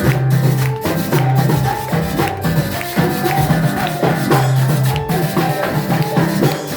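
Music with a steady beat: shaken maracas and drums over a held bass line.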